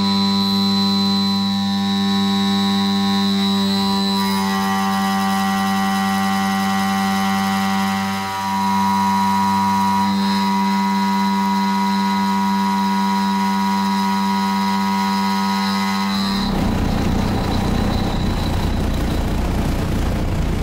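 CNC router spindle running with a steady whine while a small insert end mill slots steel. About 16 seconds in, the sound turns abruptly into a rough, noisy chatter, typical of a cut taken too deep (0.5 mm), with the machine vibrating.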